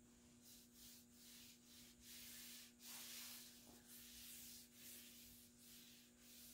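Cloth rag rubbing along a white oak longbow stave as a boiled linseed oil finish is wiped on: a run of faint rubbing strokes of uneven length, some short and some over half a second long.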